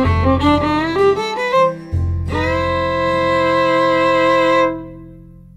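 Instrumental background music: a quick-moving melody over a low bass, then a long held chord that fades out near the end.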